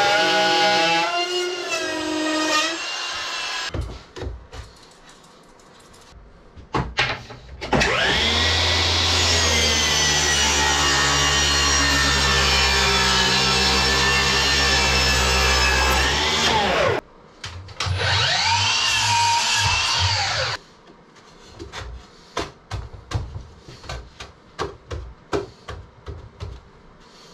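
A woodworking power tool's electric motor spins up, runs steadily for about nine seconds, stops, then runs again for about three seconds. Before and after the runs there are scattered knocks and clatter of wood being handled.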